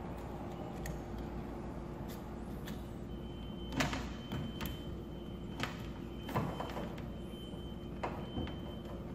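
Light clicks and rustling of electrical wires being handled while a wire nut is twisted onto the spliced heater leads. There are about half a dozen sharp ticks, mostly in the second half, over a steady low hum and a faint high whine.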